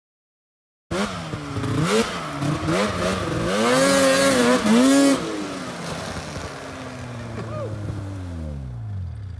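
Snowmobile engine revving hard, starting abruptly about a second in, its pitch rising and falling as the sled claws up a steep snowbank. After about five seconds the revs slide steadily down as the sled bogs down and gets stuck in deep snow.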